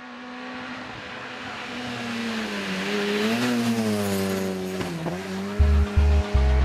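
Rally car engine at full throttle, its note climbing as the car approaches, peaking about three and a half seconds in as it passes close by, then falling away. Music with heavy bass beats comes in near the end.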